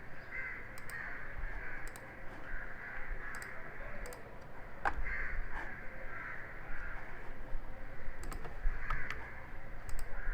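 Scattered clicks of a computer mouse, over repeated bird calls in the background.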